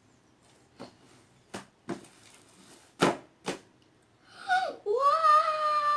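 About five short, sharp clicks or knocks in the first few seconds, then a child's long drawn-out 'uau!' near the end, held and then falling in pitch.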